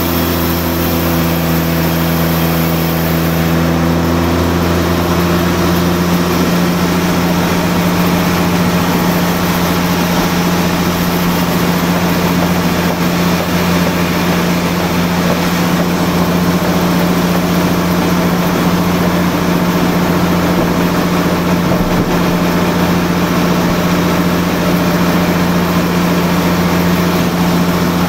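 Large sawmill band saw and its drive machinery running steadily, a constant loud hum. A few higher tones die away in the first several seconds.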